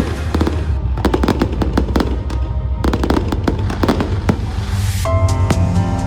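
Aerial fireworks bursting and crackling in quick succession, heard over background music with a heavy bass beat; the music's melody comes back in strongly about five seconds in.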